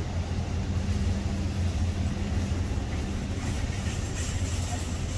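Steady low rumble of a motor vehicle engine running, with a hiss like passing traffic building from about three and a half seconds in.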